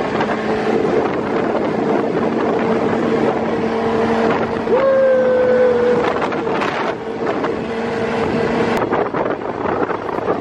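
Engine of an off-road buggy running steadily as it is driven, under wind buffeting the microphone. A brief higher tone sounds about halfway through, and a few knocks from the rough track come near the end.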